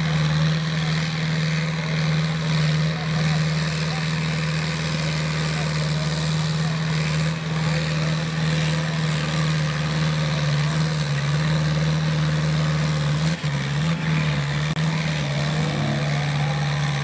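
LS farm tractor's diesel engine running hard under heavy load while pulling a weight sled, a steady loud drone. About thirteen seconds in, its pitch drops and wavers as the engine labours against the growing drag.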